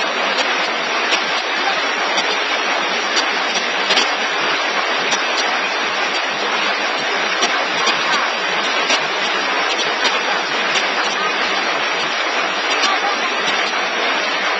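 A take-away box forming machine running: a steady mechanical noise with faint clicks now and then.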